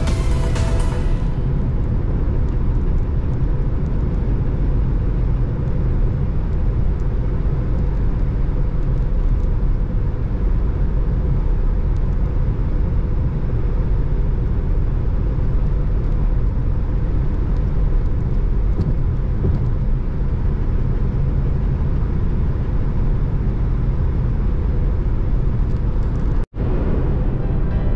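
A car driving along a road: a steady low rumble of road and engine noise. It cuts out for an instant near the end.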